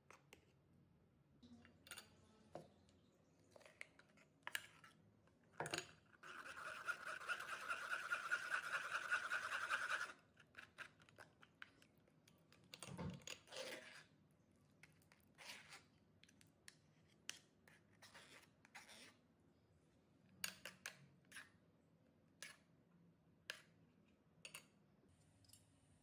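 A metal spoon scraping and stirring thick tamarind paste in a steel mixer jar and rubbing it through a wire-mesh strainer, with soft clicks and scrapes throughout. About six seconds in comes the loudest part: a steady, even noise that lasts about four seconds and stops suddenly.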